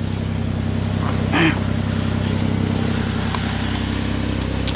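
2004 Chevrolet Impala's V6 engine idling steadily after a no-start. A brief short sound rises over it about a second and a half in.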